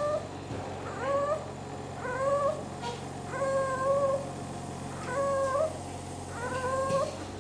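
A small child crying in short, repeated wails, about one a second, each held briefly at a steady pitch.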